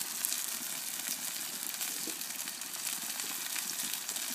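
Hot oil sizzling in a cast iron skillet on a very hot grill: a steady hiss with faint scattered crackles, the oil hot enough to be smoking.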